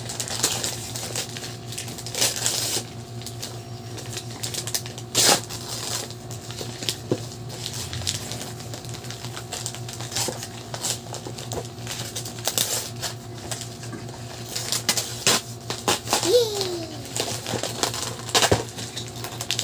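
Gift-wrapping paper being torn and crumpled by hand: irregular rips, rustles and crinkles, some sharp and loud, over a faint steady low hum.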